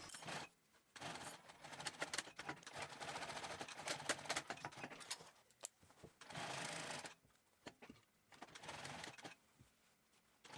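Sewing machine stitching upholstery fabric in runs of a few seconds, stopping and starting several times, with a long run of rapid stitches in the first half.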